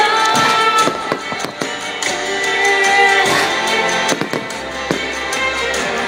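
Fireworks bursting and crackling throughout, with many sharp pops and bangs, over loud music with sustained notes.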